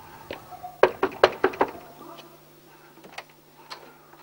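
Knocking on a wooden door: a quick run of about five loud knocks about a second in, then a couple of lighter knocks later.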